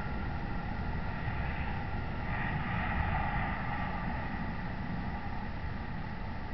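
Steady outdoor background hiss and low rumble picked up by a security camera's microphone, swelling slightly about two to three seconds in.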